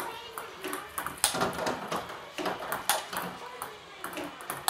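Table tennis ball knocking off paddles and the table in a few sharp, irregularly spaced clicks.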